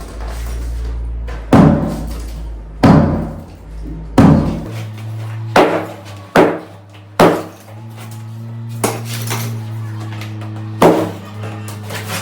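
Sledgehammer blows smashing lightweight aerated concrete blocks: about seven loud strikes at uneven intervals, each with a short crash of breaking block. Background music plays throughout.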